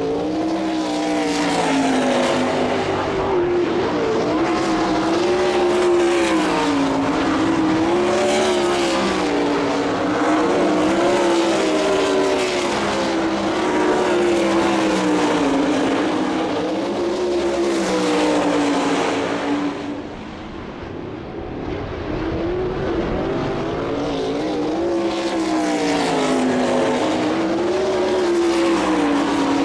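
A field of sprint cars' V8 engines racing around a dirt oval, the engine note rising and falling over and over as the cars power down the straights and ease off into the turns. About two-thirds of the way through the sound briefly drops away, then builds again as the cars come back around.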